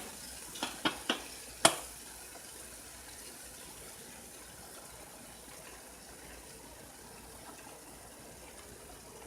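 Four light clicks in quick succession in the first two seconds, the last the loudest, then a pot of water at the boil giving a faint, steady bubbling hiss.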